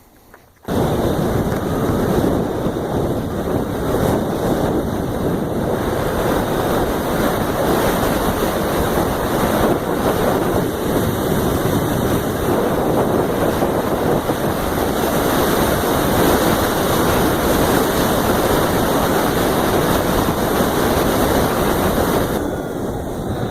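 Wind buffeting the microphone while riding a 2015 Zero SR electric motorcycle, a loud steady rush with no engine note under it. It starts suddenly just under a second in and falls away near the end.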